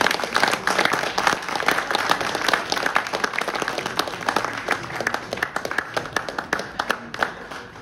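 Applause: many people clapping at once, dense and steady, thinning out near the end.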